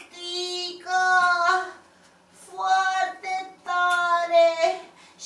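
A high-pitched voice singing short phrases of held, steady notes, with a pause about two seconds in.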